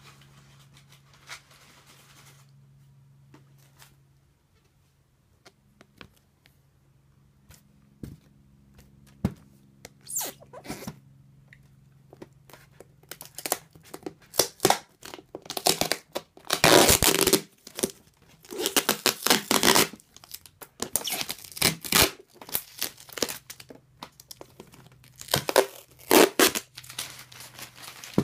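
Packing tape being ripped and peeled off a taped package, in a string of loud tearing bursts that starts about ten seconds in and is heaviest in the second half. Before that there is only a faint low hum and a few light clicks.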